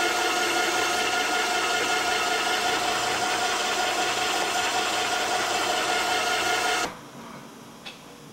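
Automated assembly machinery running: a steady mechanical noise with a few held tones. It cuts off abruptly about seven seconds in, leaving a quieter machine hum with a single click.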